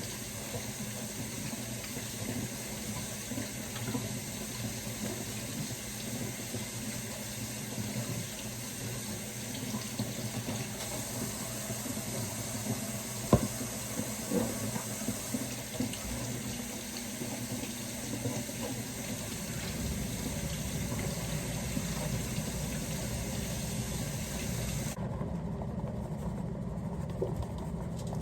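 Water running steadily from a kitchen tap into a sink, with one sharp knock about halfway through.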